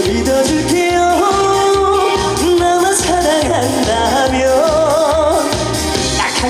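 Trot song performed live: a male singer holding long notes with vibrato over a backing track with a steady beat.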